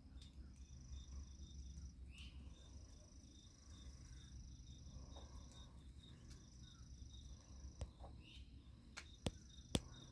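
Faint insects calling: one gives a high continuous trill that breaks off and starts again a few times, while another chirps steadily at about four chirps a second. A few sharp clicks come near the end, two of them louder than the insects.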